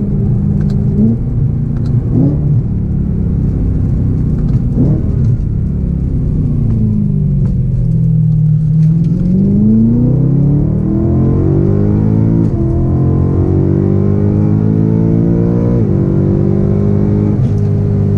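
BMW E9x M3's S65 V8 through Cherrybomb Extreme mufflers: the exhaust note falls as the car slows, then climbs steadily under acceleration through a gear. Near the end the pitch drops suddenly at an upshift and then holds steady.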